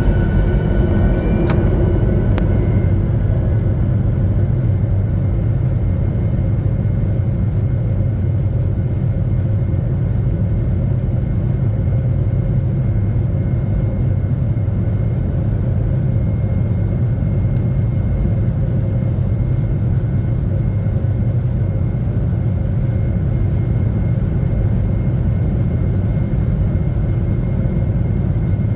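Airliner cabin noise: the jet engines and airflow heard from inside the cabin as a loud, steady low rumble with a faint steady whine over it.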